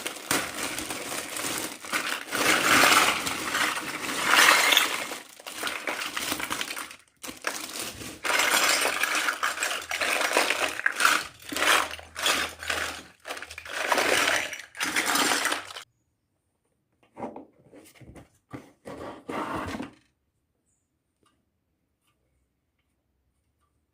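Small plastic toy kitchen pieces and their packaging being handled, with continuous rustling, clattering and clinking. About 16 seconds in it thins to a few light clicks, then stops.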